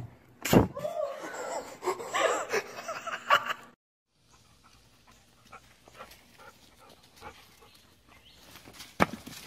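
A thump as a small puppy tumbles on a carpeted staircase, followed by about three seconds of high whimpering cries that stop abruptly. Then faint outdoor background with a single sharp knock near the end.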